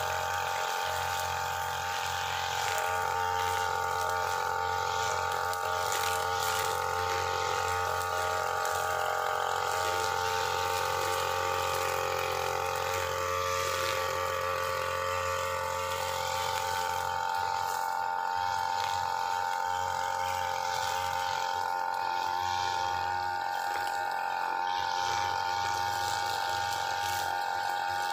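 UM328 two-stroke brushcutter engine running steadily with a high, even whine. Its 2.4 mm nylon trimmer line is cutting grass down to the soil.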